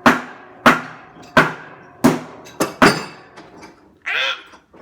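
Hammer blows on an old steel water heater tank: six sharp metallic strikes about two-thirds of a second apart, each with a short ring, the last two coming closer together, then a couple of faint knocks. A brief pitched, voice-like sound follows near the end.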